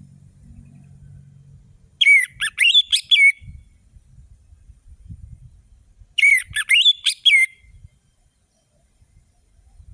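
Orange-headed thrush (anis merah) singing. Two short phrases of fast, varied whistled notes come about four seconds apart, with a faint low rumble between them.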